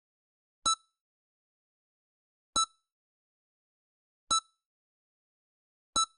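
EKG heart monitor beeping: four short, high beeps, evenly spaced just under two seconds apart, with silence between them. Each beep marks one heartbeat in a steady, slow rhythm.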